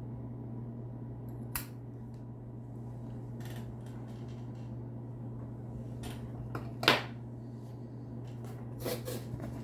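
A few light taps and clicks of a metal pen and its packaging being handled on a table, the sharpest about seven seconds in, over a steady low hum.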